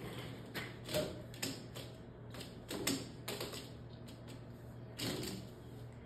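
Irregular clicks and knocks of a white plastic water line with red drinker nipples being aimed and slid through the holes in a plastic quail cage frame.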